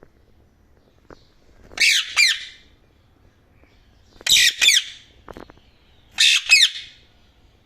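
Indian ringneck parakeet giving three loud, harsh squawks about two seconds apart, each one two quick notes in a row.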